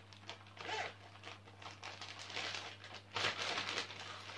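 Clear plastic zip bag crinkling as it is pulled open and handled, in irregular crackly bursts, loudest about three seconds in.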